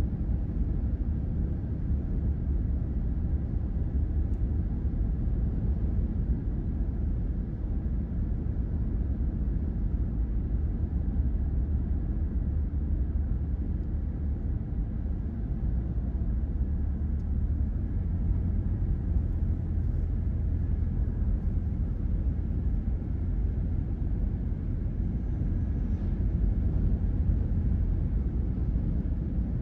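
Steady low road hum inside a car cruising on a highway: tyre and road noise with a low rumble, unchanging throughout.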